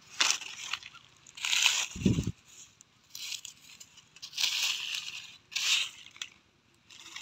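Dry leaf litter and sandy soil crackling and crunching in about five short bursts as a hand scrapes and digs through it, with a dull thump about two seconds in.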